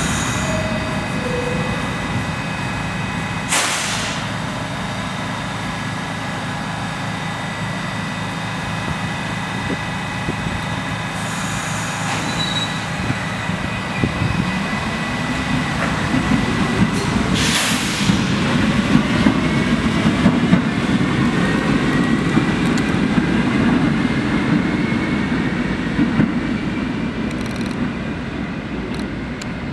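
R68 subway train setting off, its motors whining upward in pitch as it picks up speed over a steady rumble and high ringing tones. Two short bursts of air hiss, about four seconds in and again near eighteen seconds.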